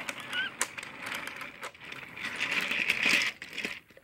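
Battery-powered toy train's small electric motor whirring as it runs along plastic track, with clicks and rattles from the wheels. There is a short squeak about half a second in.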